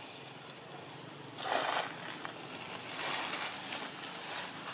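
Dry leaves rustling and scuffing in bursts as young macaques scamper over leaf litter, loudest about a second and a half in and again near the end.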